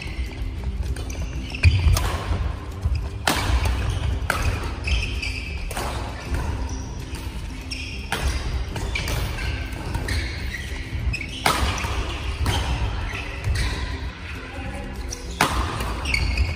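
Badminton doubles rally: rackets strike the shuttlecock with sharp cracks about once a second, echoing in a large gym hall, with squeaks and thuds of court shoes in the footwork between shots.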